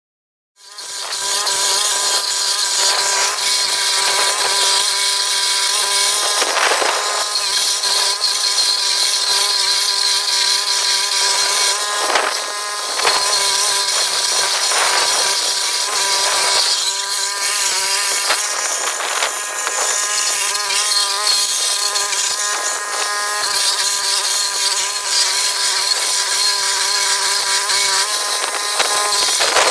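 Gasoline-engine walk-behind stump grinder running at full speed, its cutter wheel grinding into a tree stump with a steady engine note and a high hiss of chips, swelling briefly several times as it bites. It cuts in abruptly about half a second in.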